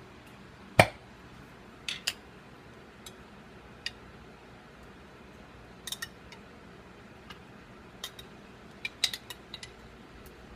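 Scattered clicks and knocks of a kitchen utensil against a metal pizza pan and other kitchenware while sauce is spread on a pizza crust, the sharpest knock about a second in and small clusters of taps later on.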